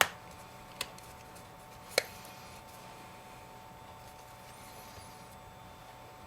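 Three sharp clicks in the first two seconds, the loudest about two seconds in, as an iPhone 5's replacement screen assembly is pressed down into its aluminum casing and its clips snap in. A faint steady tone runs underneath.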